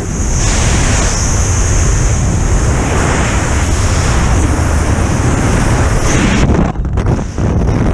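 Freefall wind rushing and buffeting over the camera's microphone, loud and steady, easing briefly near the end.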